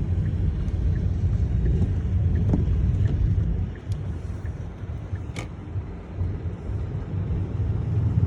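Car driving, a steady low road and engine rumble that eases off about four seconds in and builds again near the end.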